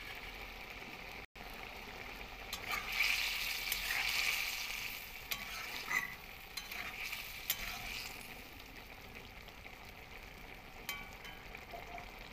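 Curry hissing and sizzling in an iron kadai. A metal spatula stirs and scrapes the pan from about two seconds in until about eight seconds, with a few sharp clicks of metal on iron.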